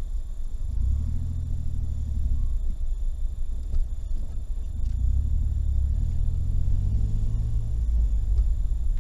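A moving car's engine and road rumble, heard from inside the cabin. The engine hum swells and eases off twice.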